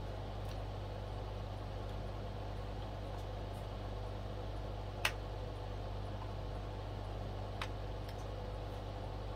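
Steady low hum with a sharp click about five seconds in and a fainter click a few seconds later, as the record player's turntable parts are handled.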